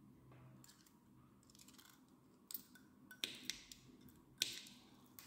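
Cutting blade of an RJ45/RJ11 crimping tool snipping the untwisted Cat 5 cable wires to length: a few sharp snips in the second half.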